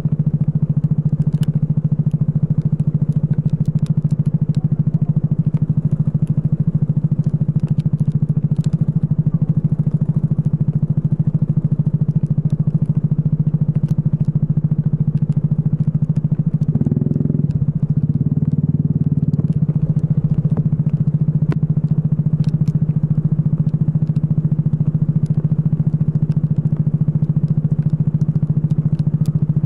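Racing kart engine running steadily at a constant high note, with a short change in its pitch about 17 seconds in.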